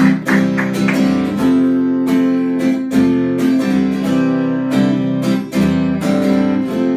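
Acoustic guitar strummed in a steady rhythm, playing the chordal introduction of a song before the vocals come in.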